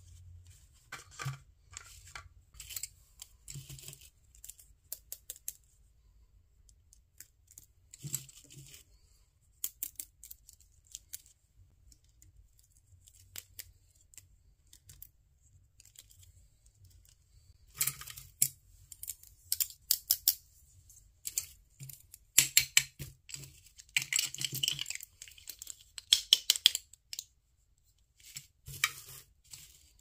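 Small plastic toy laundry pieces (hangers, a laundry basket, drying-rack parts) being handled and set down, clicking and rattling against each other in scattered bursts that come thickest in the second half.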